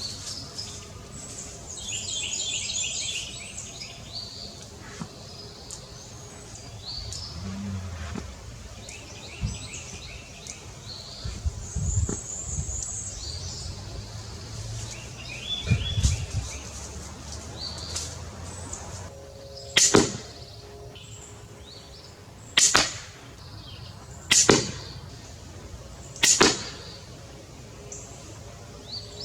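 Pistol crossbow shots: four sharp snaps of the string releasing and the bolt striking, about two seconds apart, in the second half. Birds chirp in the first few seconds.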